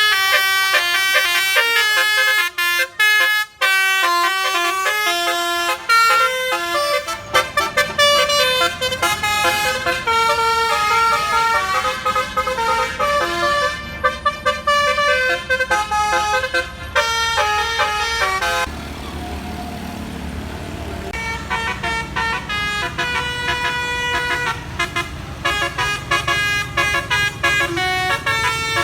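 Bus 'telolet basuri' musical air horns playing fast melodic sequences of horn notes, each held briefly before jumping to the next pitch, over the low rumble of a bus engine. The horns break off for a couple of seconds about two-thirds of the way through, leaving the engine, then start up again.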